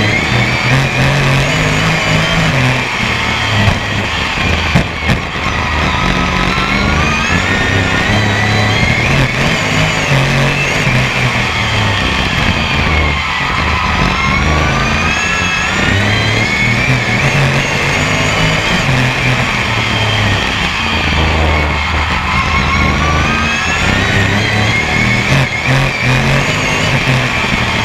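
Onboard engine sound of a BRISCA F1 stock car's V8 at racing speed: the revs climb steadily for several seconds along each straight and fall away into each bend, about four times, over a constant low rumble.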